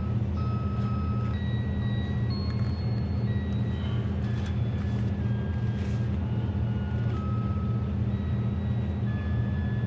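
A simple electronic tune of thin, beeping single notes from a children's sound book's sound module, playing over a steady low hum, with a few faint handling clicks from the book.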